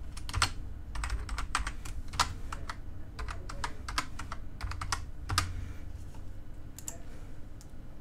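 Typing on a computer keyboard: quick runs of key clicks for about five seconds, then a couple of single key presses before it stops.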